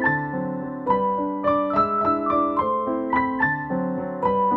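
Piano music: a gentle melody of struck notes, several a second, over sustained lower chords.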